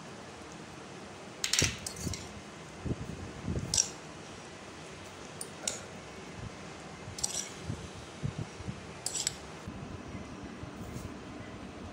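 Metal spoon scraping and clinking against a stainless-steel bowl while spooning out mashed pomelo: several sharp clinks a second or two apart, with softer scrapes between them.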